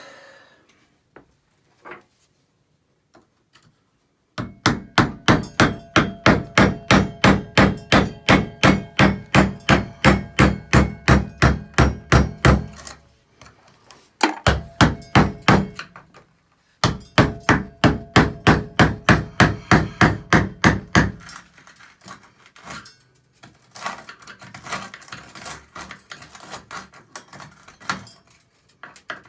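Rapid hammer blows, about three a second, in three runs with short pauses between, chipping hardened grout out from around tub-and-shower valve stems set in tile. Lighter, irregular tapping and scraping follows near the end.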